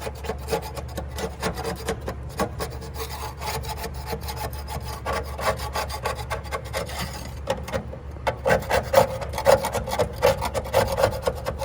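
Putty knife scraping old undercoating off a steel car frame in rapid, short, rasping strokes, growing harder about eight seconds in.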